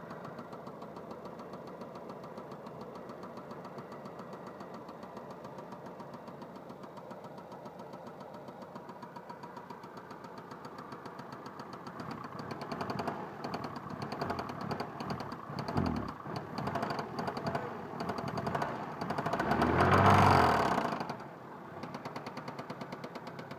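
Opel Vectra A 1.8 single-point-injection engine idling with a knock in the engine. From about halfway it is blipped several times, then given one longer rev near the end before dropping back to idle. The owner does not know what is knocking.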